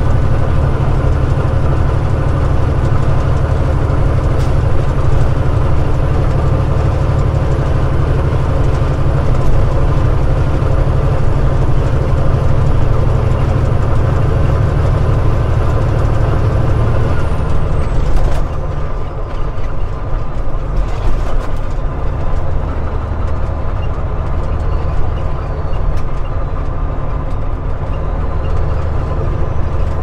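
Semi truck's diesel engine droning steadily at highway speed, with road noise. About two-thirds of the way through, the low drone eases off and the sound thins out.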